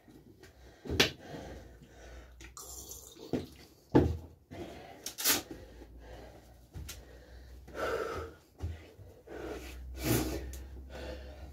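A man breathing hard with loud, breathy exhales as he works through jumping jacks, kick-outs and squats. There are sharp thuds from the workout, the loudest about one and four seconds in.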